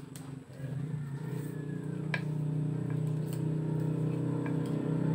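Small electric wiper motor of an improvised coil rewinder running with a steady hum. It starts about half a second in and gradually gets louder, with a few faint clicks.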